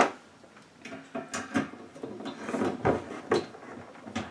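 A sharp knock, then irregular clicks, scrapes and small knocks of a Phillips screwdriver driving a screw through a satellite dish reflector into its rear bracket. The screw is being put in only part way, so the holes stay lined up.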